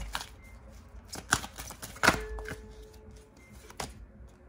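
Oracle cards being shuffled and handled, with scattered clicks and two sharp snaps about a second and two seconds in, as a card is drawn.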